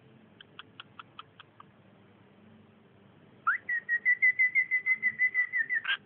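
Cockatiel giving a quick run of about seven short chirps, then a rising note that turns into a long warbling whistle held at one pitch for more than two seconds, ending with a brief upward flick.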